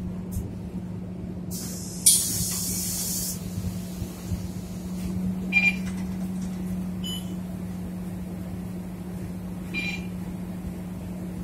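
Interior of a Scania K230UB city bus: a steady low engine hum, broken about two seconds in by a loud hiss of compressed air lasting a second or so. Two short electronic beeps sound around the middle and just before the end.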